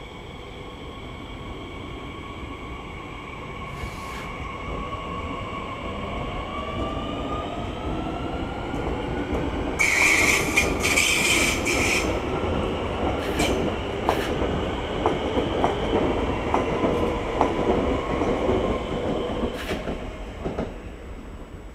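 SNCF Z50000 Francilien electric train pulling away, its traction motors whining and rising in pitch as it gathers speed. About ten seconds in comes a loud high screech in two parts lasting about two seconds, then the wheels click over rail joints as the train goes by, fading near the end.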